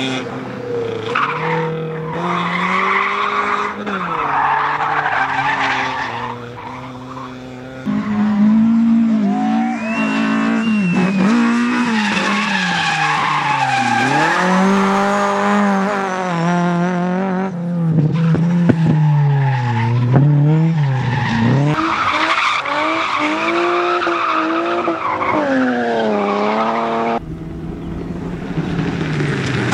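Rally car engines revving hard, the pitch climbing and dropping back again and again through gear changes, over the noise of tyres skidding. The sound changes abruptly about eight seconds in and again near the end.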